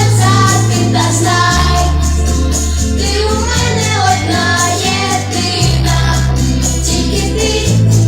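Pop song: a voice singing over backing music, with held bass notes that change about every two seconds.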